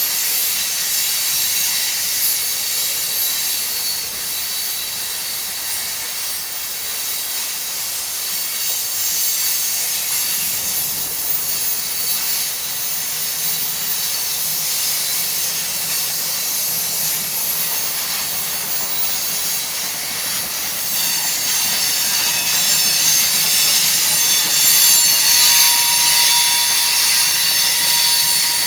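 Freight train rolling past: a steady, loud rush of steel wheels on rail with a thin high squeal over it, growing a little louder after about twenty seconds.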